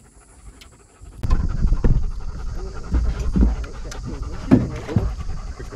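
Dog panting close by, starting about a second in and going on heavily, with short breathy strokes.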